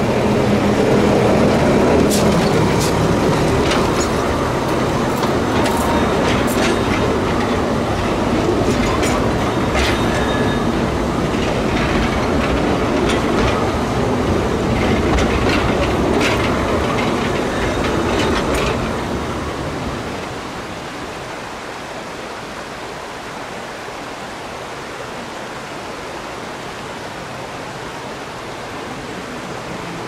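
Narrow-gauge forest railway train running, its wheels clicking sharply and irregularly over the track. About twenty seconds in, the running noise dies down to a quieter, steady rushing sound.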